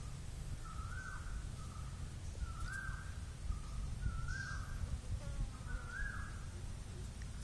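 A bird calling repeatedly: four longer calls about every second and a half, with shorter, flatter notes between them, over a steady low rumble.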